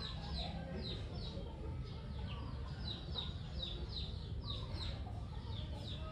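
Background bird calls: a steady run of short, high chirps that fall in pitch, about two or three a second, over a low rumble.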